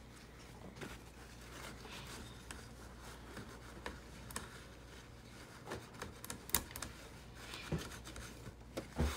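Paper towel rubbing and scraping as it wipes spilled ink out of an inkjet printer's print-head area, with scattered light clicks and taps.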